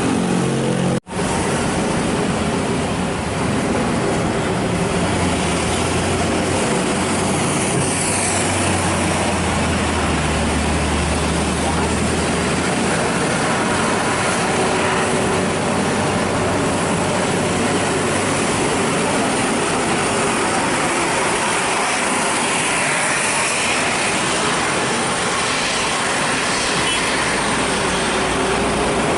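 Heavy road traffic: truck and bus engines running with dense tyre and engine noise, a deep engine drone standing out from about six to twelve seconds in. The sound drops out briefly about a second in.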